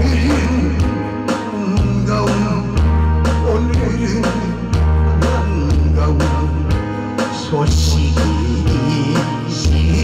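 A singer performing a Korean popular song live into a microphone over an amplified backing track with a steady beat and a deep bass line.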